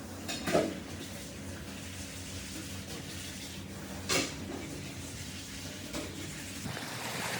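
Water running steadily, with a few short knocks.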